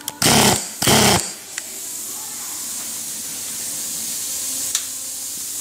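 Uryu UX-800 pneumatic nutsetter (air-powered torque tool) run free in two short bursts on the trigger, about half a second apart. A steady high hiss of escaping compressed air follows.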